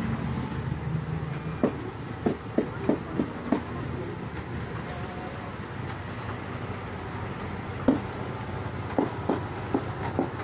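A steady low mechanical hum with two runs of short, sharp clacks: about six in quick succession a couple of seconds in, and another handful near the end.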